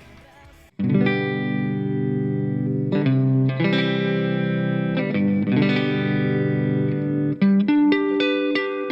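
Squier Classic Vibe Telecaster Custom electric guitar played clean on its neck single-coil pickup, through a Marshall MG102 amp with a little reverb and compression. Strummed chords ring out from just under a second in and change every second or two, with a warm, fat tone. Near the end come quicker, shorter chord strums.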